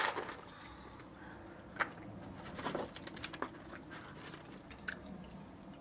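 Quiet eating sounds: scattered small clicks and smacks from chewing and handling food, the loudest about two and three seconds in.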